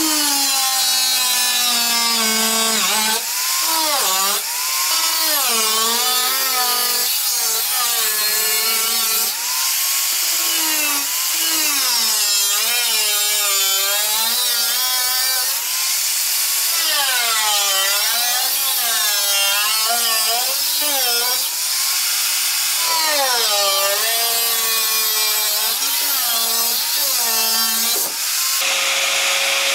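Angle grinder cutting through a car's sheet-metal body panel, its whine dipping and rising again and again as the disc bites into the steel and eases off. Near the end the whine turns steady.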